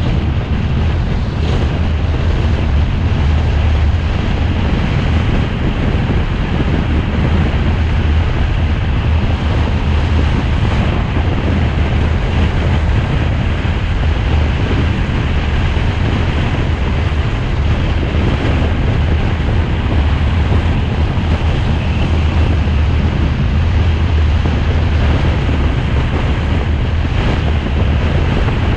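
Wind and road noise from a car driving along a paved road: a loud, steady low rumble with an even hiss over it.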